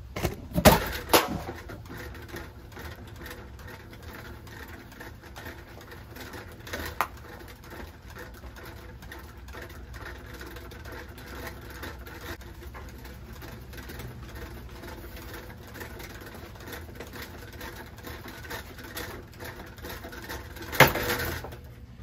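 Harbor Breeze low-profile ceiling fan running with a steady hum and fast ticking, hit by thrown objects: two sharp hits about a second in, a smaller one around seven seconds, and a loud crash near the end that knocks a blade down.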